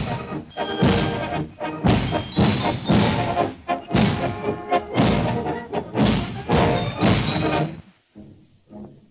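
Film score music: an orchestral passage driven by heavy accented beats about twice a second, breaking off near the end into a few faint, sparse notes.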